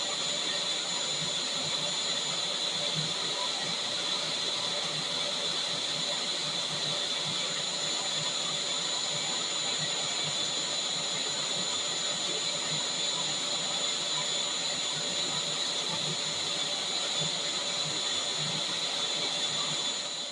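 Vacuum cleaner running steadily: an even rushing hiss with a high-pitched motor whine. It starts to die away at the very end.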